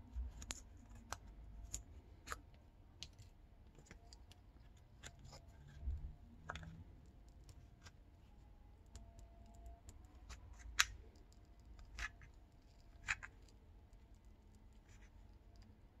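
Scattered faint clicks and light scrapes of small tools and parts being handled on an opened smartphone during disassembly, at irregular intervals, with a few sharper clicks past the middle.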